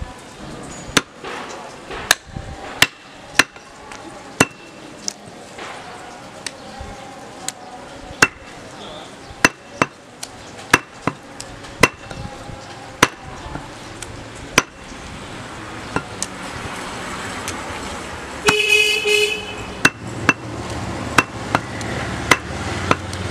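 Steel cleaver chopping goat meat on a wooden log block: about two dozen sharp chops at uneven intervals, with a pause of a couple of seconds around the sixth second. A vehicle horn toots briefly about three quarters of the way through.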